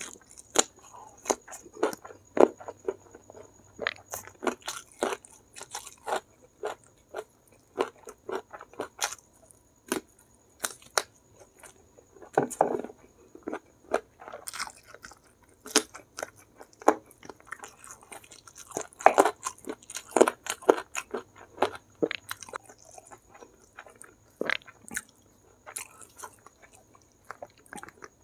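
Close-up chewing and crunching of crispy battered fried chicken (ayam geprek) and rice eaten by hand: a stream of irregular sharp crunches and mouth clicks.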